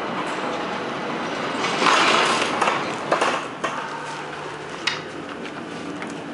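Flohr-Otis traction elevator doors sliding open over a steady background rumble, with a louder surge of noise about two seconds in. A few sharp clicks and knocks follow as a person steps into the car.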